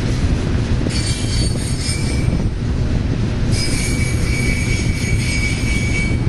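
Double-stack container cars of a freight train rolling past on curved track: a steady low rumble, with high-pitched wheel squeal from the curve coming in about a second in for a second or so, then again from about halfway on.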